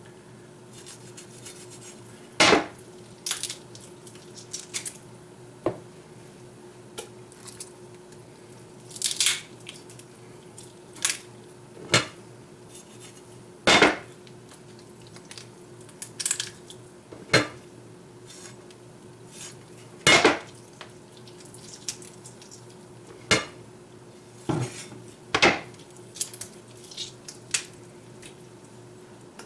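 French billhook chopping chicken on a cutting board: about twenty sharp knocks at irregular intervals as the blade strikes through onto the board, with a faint steady hum underneath.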